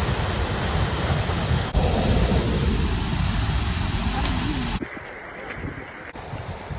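Seljalandsfoss waterfall's falling water and spray, a loud steady rush with a deep rumble underneath. It changes abruptly at cuts and is quieter for the last couple of seconds.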